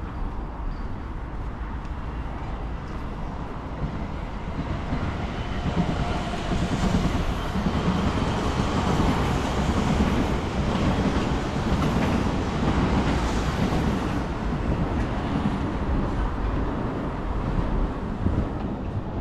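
Tokyu Toyoko Line electric train passing: the sound builds about five seconds in, is loudest through the middle, and fades away near the end.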